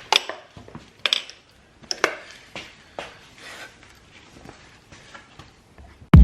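Scattered metallic clinks and taps of hand tools and bolts being handled during motorcycle clutch work, some ringing briefly. Loud music cuts in abruptly at the very end.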